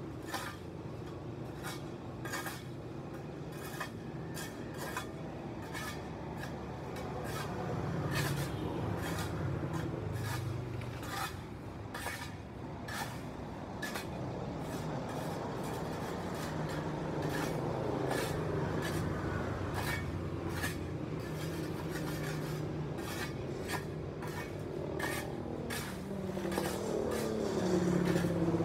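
Hand tools scraping and sweeping a paved sidewalk in quick repeated strokes, with road traffic running by; a vehicle passes close near the end.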